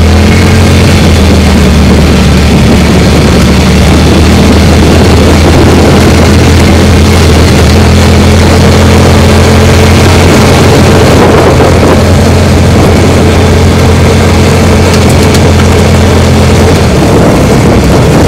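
A side-by-side utility vehicle's engine running steadily while the vehicle drives, loud and close; its low engine note changes near the end.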